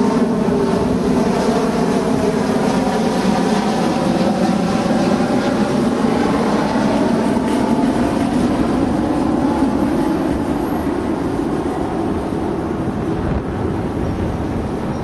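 Twin-engine Airbus A330 airliner on final approach with gear down, its jet engines at approach power making a loud, steady noise with a faint hum in it, easing off a little over the last few seconds as it moves away.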